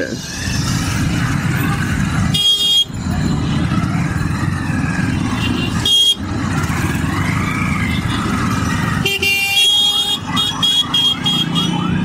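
Dense stop-and-go street traffic with motorcycle and engine rumble, and vehicle horns honking: a short honk about two and a half seconds in, another around six seconds, and a run of several quick honks near the end.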